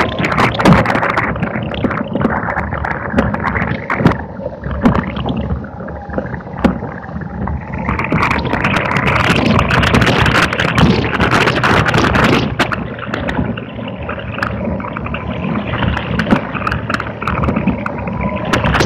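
Onboard sound of a small electric race car at speed on a wet track: a loud, splashy rush of wind and tyres on water, with many sharp clicks and rattles. It eases off for a few seconds and then builds up again about halfway through.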